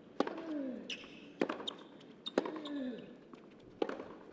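Tennis rally on a hard court: four sharp racquet-on-ball strikes about a second or so apart, most followed at once by a player's grunt that falls in pitch, with brief shoe squeaks on the court between shots.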